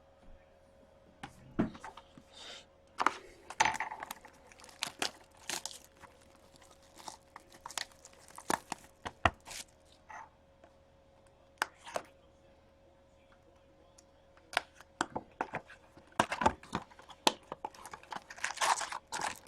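Plastic shrink wrap being torn and crinkled off a sealed box of hockey cards, with the cardboard box and packs handled in short knocks and clicks. A faint steady hum runs underneath.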